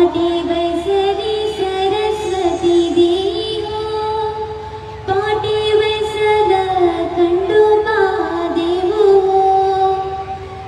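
Female voice singing an Agri-Koli dhavala, the traditional wedding song, in two long, slowly bending phrases. The second phrase starts about halfway through.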